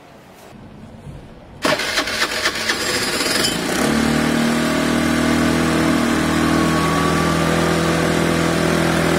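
A Piaggio Fly 125 scooter's single-cylinder four-stroke engine being started on its electric starter: it cranks and sputters, catches, and settles into a steady fast idle with the choke on. The engine has sat unused, its carburettor still needing a clean, and the exhaust has a hole in it.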